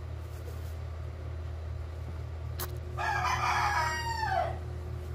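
A rooster crowing once about three seconds in: a single call of about a second and a half that falls in pitch at its end, over a steady low hum.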